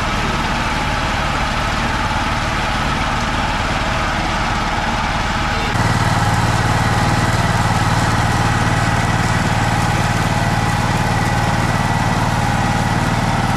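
A steady engine hum, like a small motor idling, over the general din of a busy outdoor market. About six seconds in the sound shifts abruptly to a louder, deeper hum with a steady high tone above it.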